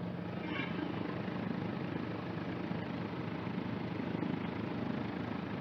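Cabri G2 helicopter running steadily, its piston engine and rotors making a constant drone with a low steady hum.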